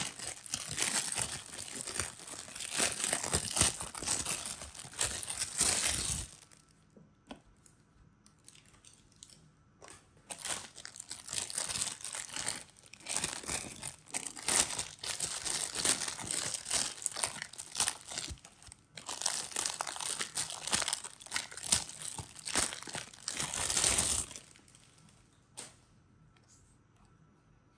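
Thin clear plastic bags crinkling and rustling as hands pull vinyl figures out of them. The crinkling comes in three long stretches with a quieter lull after about six seconds and a short break near nineteen seconds, and stops a few seconds before the end.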